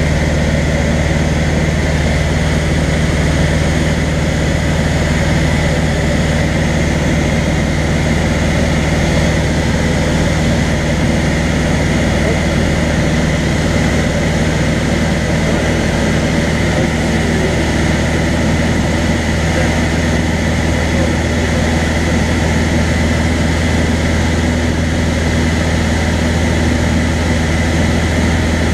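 Single-engine light aircraft's piston engine and propeller droning steadily, heard from inside the cockpit, with a deep hum and no change in pitch or level.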